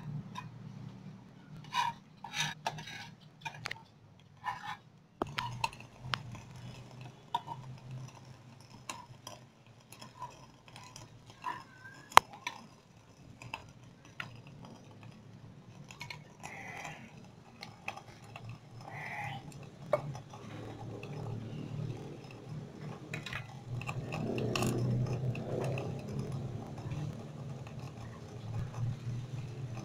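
Metal spoon scraping and tapping against a frying pan as food is stirred, in irregular clinks, one sharper clink about twelve seconds in, over a steady low hum.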